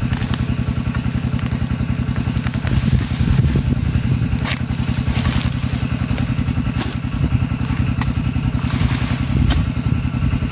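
A small engine running steadily close by, with an even, rapid beat, and a few sharp clicks or knocks over it.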